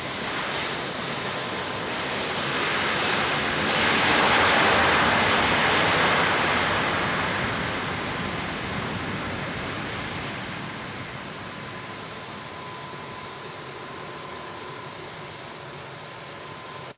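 Jet airliner rolling past on landing: a rushing engine noise that swells to its loudest about four to six seconds in and then slowly fades.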